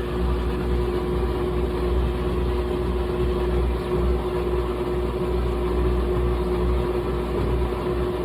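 GE top-load washing machine running steadily, a constant motor hum with a low rumble under it.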